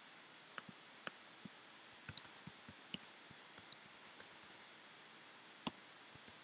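Faint, irregular clicking of computer keyboard keys as a word is typed, with one louder keystroke near the end.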